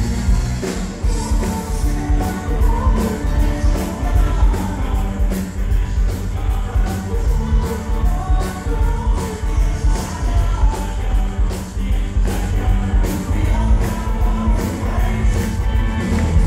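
Live rock band playing, with singing over a steady drumbeat and heavy bass from a PA speaker close to the recording phone, which makes the sound bass-heavy and muddy.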